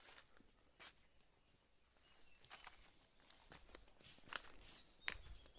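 Steady high insect buzzing, with footsteps on dry leaf litter and twigs coming in during the second half, two sharp snaps the loudest, about four and a half and five seconds in.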